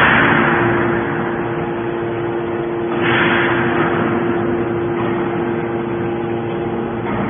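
Hydraulic can baler running: a steady pump-motor hum, with a surge of hiss at the start and again about three seconds in.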